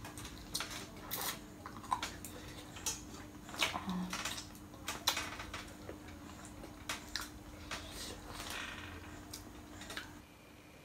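Eating sounds: many short, irregular clicks and clinks of a bowl and utensils being handled at the meal, over a faint steady hum.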